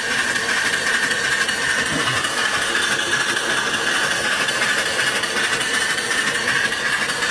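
Small horizontal steam engine running, with a steady hiss of escaping steam.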